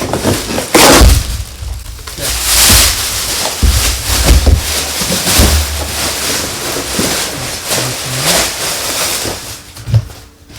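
Irregular rustling and knocking from wall-mount parts and packaging being opened and handled, with low bumps and rumbles throughout.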